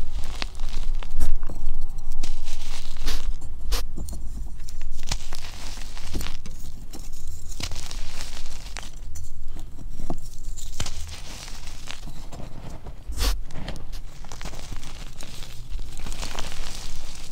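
Gym chalk being crushed and crumbled between bare hands in a tub of loose chalk powder. Dry, gritty crunching and crackling, with irregular sharp snaps and a few louder cracks.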